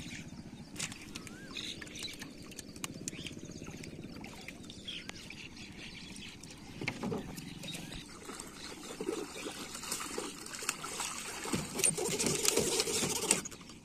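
Water splashing and dripping as a small fish is pulled up out of the river on a long hook line near the end, over a low steady hum with light clicks of line handling before it.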